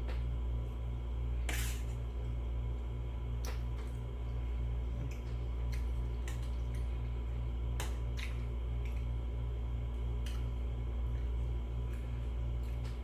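Eating sounds: scattered short clicks and smacks of chewing and utensils, one more pronounced about a second and a half in, over a steady low hum.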